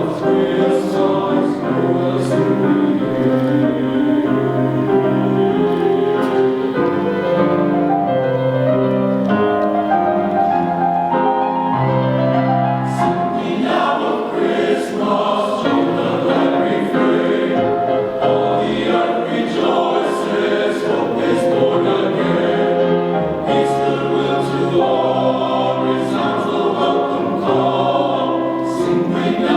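Men's chorus singing in harmony, many voices holding and moving through chords together.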